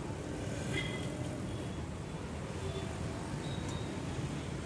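Samosas deep-frying in a kadai of hot oil, a steady sizzle, over a steady low rumble of street noise, with faint voices now and then.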